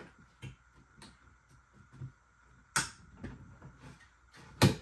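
Plastic trunk trim being pried off its clips: scattered light knocks and clicks, then two sharp snaps nearly two seconds apart, the second the loudest.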